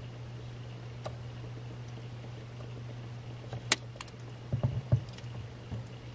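Automatic freezer ice maker working through its cycle: a steady low hum, a sharp click a little past halfway, another click just after, then a few soft knocks.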